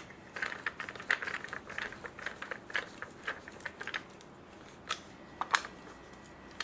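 Small screws and hardware being handled: light, irregular clicking and rattling, with two sharper clicks about five seconds in.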